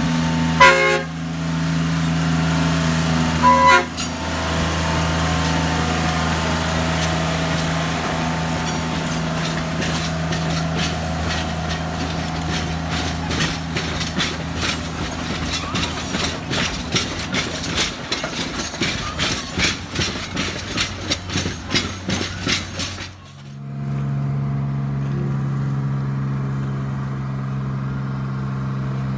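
Small narrow-gauge locomotive engine running steadily, with two short horn toots in the first few seconds. Then a long run of rapid clicking and clatter as wheels roll over the track, ending suddenly about 23 seconds in, after which a steadier engine hum takes over.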